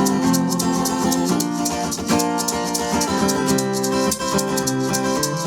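Live band playing an instrumental break without singing: strummed guitar chords with a shaker keeping a steady rhythm.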